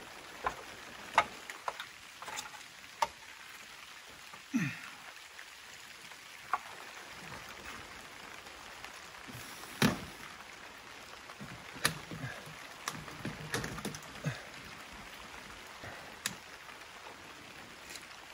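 Stainless steel stovepipe knocking and clicking now and then as it is handled and fitted into place from a stepladder, over a steady hiss. There is a brief creak about four and a half seconds in.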